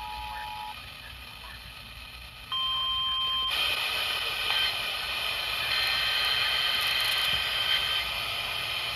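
Emergency Alert System broadcast tones: the two-tone attention signal cuts off just under a second in, a single steady alert tone sounds for about a second from about 2.5 s in, and from about 3.5 s in loud steady hiss with several steady whining tones runs on, like a noisy radio channel carrying alert tones.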